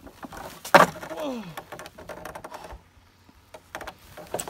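Salmon-ladder bar knocking against the wooden rungs of a pole-mounted ladder as it is jumped up: one loud knock about a second in, then a short grunt falling in pitch. A few lighter knocks come near the end, then another loud knock.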